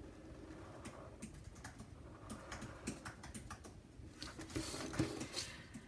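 Faint, irregular clicks and scratches of a pen drawing a line along a plastic ruler on paper, a little louder near the end.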